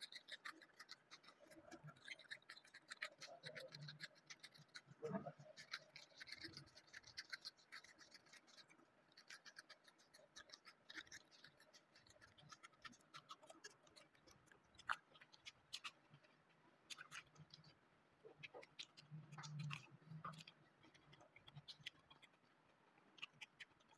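Faint crunching and scraping of teeth stripping the peel off raw cucumbers: scattered small clicks and scrapes, with some chewing.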